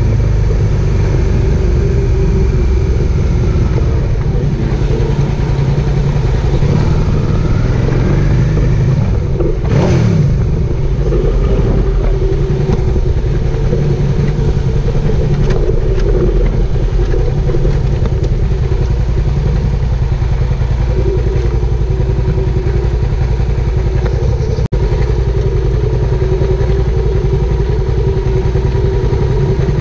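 Suzuki SV650S's V-twin engine running at a steady cruise, picked up from the tank with heavy wind rumble. A brief rush of noise sweeps through about ten seconds in.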